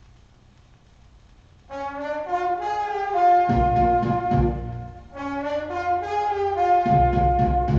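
A 78 rpm shellac record playing: faint surface hiss at first, then about a second and a half in the orchestral introduction starts, with brass holding and stepping through long notes over a low beat.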